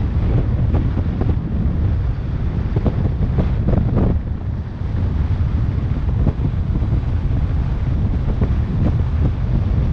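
Loud wind buffeting the microphone of a bicycle-mounted camera descending at high speed: a deep, rumbling roar with irregular gusts.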